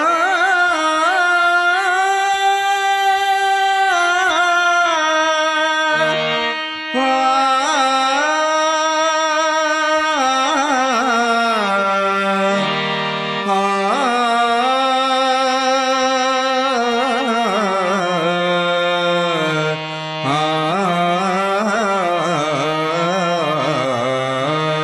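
A male singer's drawn-out 'aaa' vocal alap in a Telugu devotional bhajan, the voice winding up and down in pitch glides over a harmonium's held notes, pausing briefly a few times.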